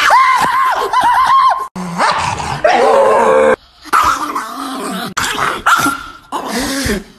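A chihuahua making high-pitched yips and growls: a quick run of about six short calls at the start, then more scattered yaps and grumbles.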